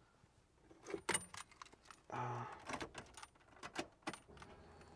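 Car ignition key and keyring jingling, with several light clicks, as the key is turned to on; a brief low hum about two seconds in.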